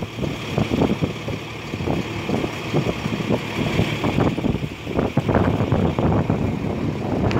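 Heavy stream of water dumping from a fire truck's tank into a portable folding tank: a steady rushing splash. Gusts of wind buffet the microphone throughout.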